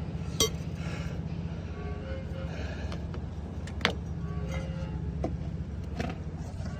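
An engine running steadily with a low, rapidly pulsing hum, and a few sharp metallic clinks of tools on the brake parts.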